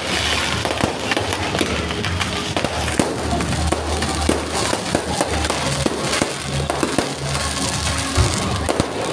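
Fireworks display: many sharp bangs and pops in quick, irregular succession, over music playing.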